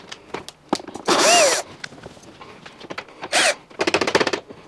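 Cordless screwdriver backing screws out of a washing machine's plastic front panel: two short whirs, one about a second in and a shorter one after three seconds, each rising then falling in pitch. Light clicks and rattles of handling come between them.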